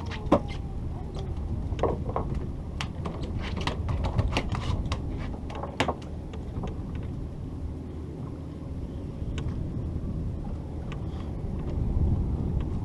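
Steady low rumble of a boat's engine, with many sharp clicks and knocks over the first half that thin out later.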